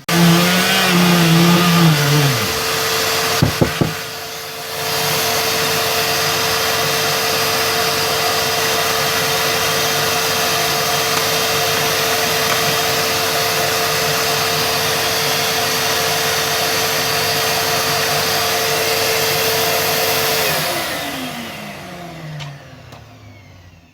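Electric sander running with a vacuum cleaner attached for dust extraction: a steady hum and whir, with a brief dip and a few clicks about four seconds in. Near the end the motor winds down, falling in pitch, as the sander cuts out. The fault is intermittent, and the owner puts it down to a loose spade connector at the switch.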